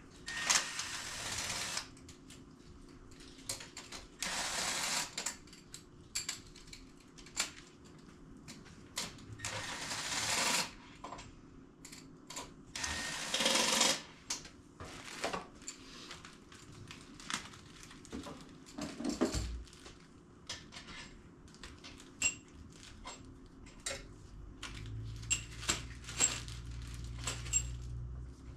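Hand tools and metal engine parts clicking and clinking during engine disassembly, with four bursts of rapid mechanical clicking of one to two seconds each and scattered sharp clicks between them.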